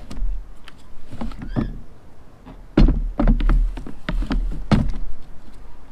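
Knocks and thumps of a lithium battery being handled and shifted inside a plastic battery box, with one heavier thump just under three seconds in and a short squeak of rubbing material a little before it.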